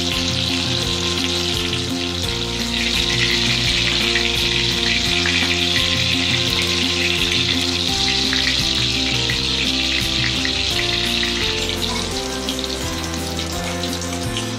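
Soya chunks frying in hot oil in a steel wok, a steady loud sizzle with fine crackling throughout. Background music plays underneath.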